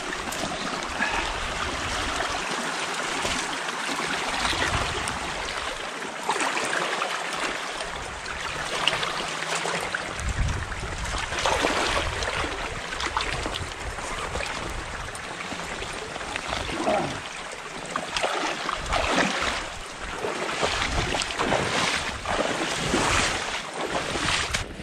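Footsteps of someone wading in waders through shallow, knee-deep flood water, sloshing and splashing at each step.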